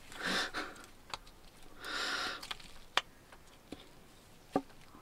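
Small plastic and metal parts of a dismantled 12V diaphragm water pump being handled and pushed together, giving faint clicks and taps, the sharpest about three seconds and four and a half seconds in. Two short breathy hisses come near the start and about two seconds in.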